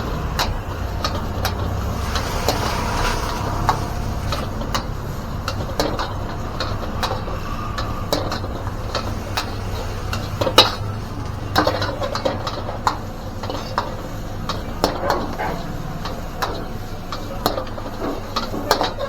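Stir-frying fried rice in a wok: a metal spatula clanking and scraping against the pan in quick, irregular strikes, over a steady low hum.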